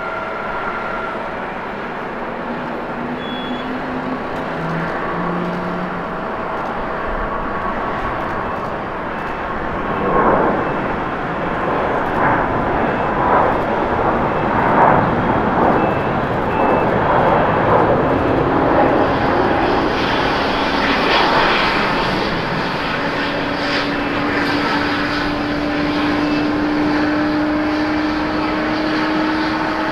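Airbus A350's Rolls-Royce Trent XWB jet engines at takeoff thrust: a steady jet noise that swells about a third of the way in as the airliner rolls past and lifts off, then a steady drone that rises slightly in pitch as it climbs away.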